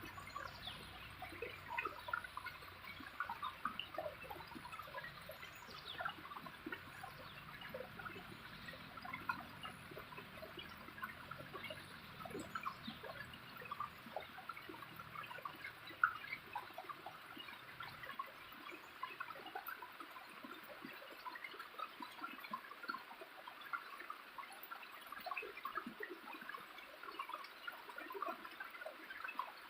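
Small waterfall: water running and splashing steadily, with a constant scatter of small drips and splashes over it.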